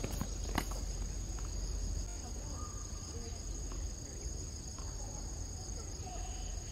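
Steady high-pitched drone of insects. Two sharp tennis ball strikes come near the start, about half a second apart, with fainter ball sounds later.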